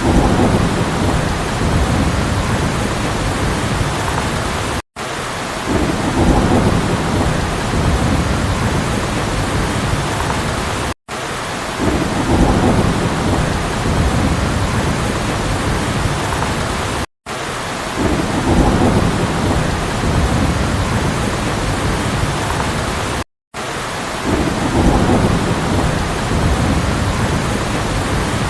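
Heavy rain with low rumbles of thunder, a short clip of about six seconds played over and over, each repeat starting with a swell of rumble and cut off by a brief dropout before the next.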